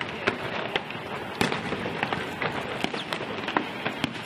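Fireworks display going off: a string of sharp pops and crackles from bursting shells, the loudest bang about a second and a half in.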